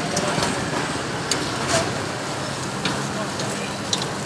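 Street-side ambience at a charcoal grill: steady traffic noise and background voices, with scattered sharp pops and crackles from skewered meat and quail grilling over charcoal.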